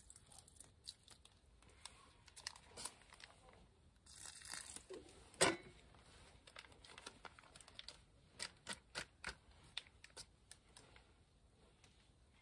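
Hands crinkling and tearing thin packaging, with scattered small clicks. A rustling stretch about four seconds in ends in one sharp knock, and a few seconds later comes a quick run of about five clicks.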